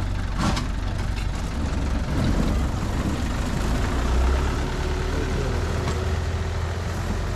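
Taipingshan bengbeng forest train running, a steady low engine hum with rattling, and a sharp knock about half a second in.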